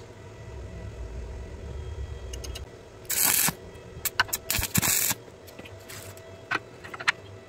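Stick-welding arc crackling in several short bursts, each under a second long, as a flux-coated electrode tack-welds a nut.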